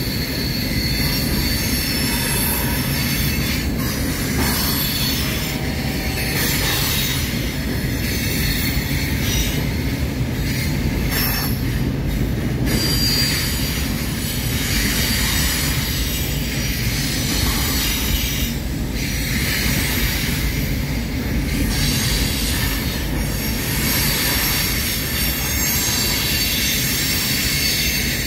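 Freight cars (hoppers, a boxcar and gondolas) rolling across a steel girder bridge: a steady heavy rumble of wheels on rail, with thin high wheel squeal now and then.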